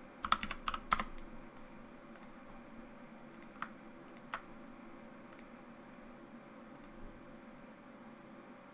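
Computer keyboard: a quick run of about six keystrokes within the first second, entering a dimension value, then two single clicks about a second apart a few seconds later, over a faint steady hum.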